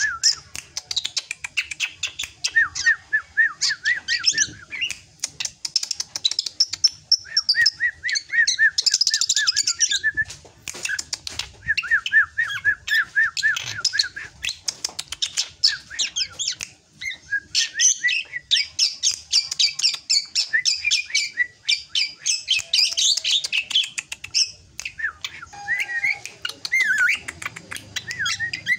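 Young drongo singing: runs of quick, repeated notes, each run lasting a second or two, alternating with higher, busier chattering and sharp clicking notes.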